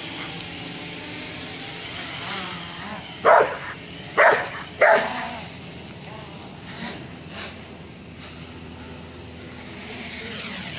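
An American bulldog mix barks three times in quick succession, a few seconds in, over the steady hum of a Blade 350 QX quadcopter's motors and propellers.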